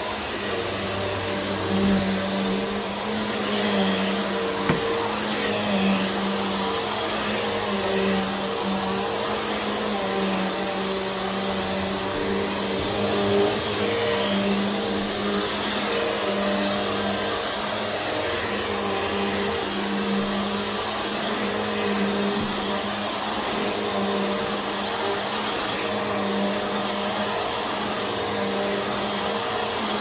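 Upright vacuum cleaner running on carpet with no debris being picked up: a steady motor drone with a thin high whine on top, its tone swelling and easing every couple of seconds as it is pushed back and forth.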